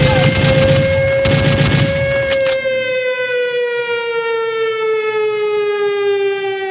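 Air-raid siren, as a sound effect, holding its pitch and then slowly winding down. Loud noisy hits with a low bass play under it and stop about two and a half seconds in, leaving the siren falling alone.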